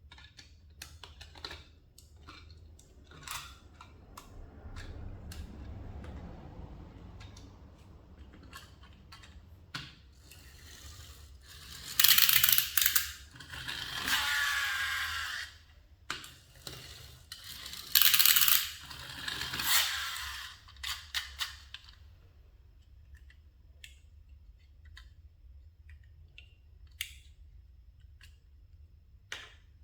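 Plastic toys and their packaging being handled: scattered clicks and knocks, with two loud noisy bursts about twelve and eighteen seconds in.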